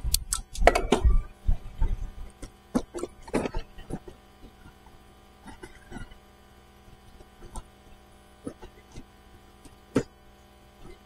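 A steady hum of several fixed tones, with scattered sharp clicks and knocks and a burst of low rumbling and knocking in the first second or so.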